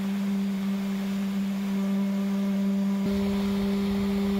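CNC router spindle running at a steady speed, a steady pitched hum, while a V-bit engraves letters into a wood block. About three seconds in, a click and a low rumble join the hum.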